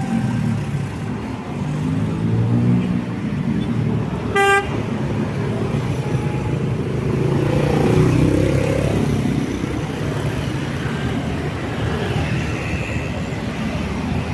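Road traffic: vehicle engines running and passing steadily, with one short car horn toot about four and a half seconds in.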